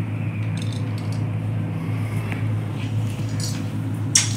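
A steady low hum, with quiet handling of a plastic water bottle and a steel tumbler on a table and one sharp click near the end.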